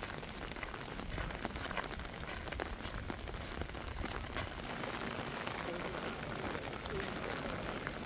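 Light rain falling: an even hiss with many small, scattered drop ticks.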